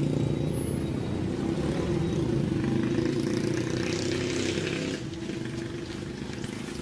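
A motor vehicle engine idling close by, a steady low hum that eases a little near the end. About three to five seconds in, newspaper crinkles as it is folded.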